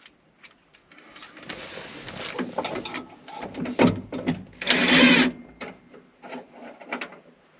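Scraping, rattling and clicking of a car radio being worked into a tight dash opening, with a louder scraping burst about five seconds in.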